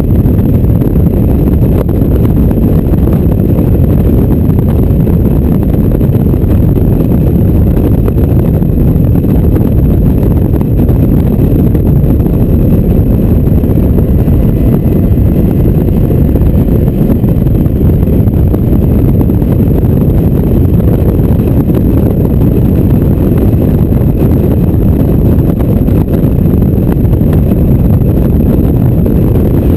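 Open-top Mazda MX-5 driven hard on track: loud, steady wind buffeting on the microphone mixed with engine and tyre noise.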